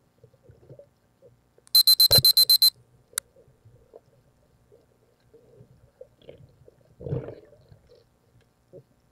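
A fast run of about eight loud, high electronic beeps packed into about a second, followed by a single sharp click; later, about seven seconds in, a dull muffled rumble.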